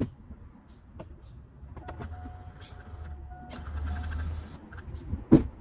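A click, then the electric fuel pump of a 2000 GMC Jimmy priming with a steady motor hum and whine for about three seconds before it stops. It is building fuel pressure that reaches only 48 psi instead of the 60 to 62 needed, which the mechanic puts down to the new fuel pressure regulator not regulating correctly. A sharp thump near the end.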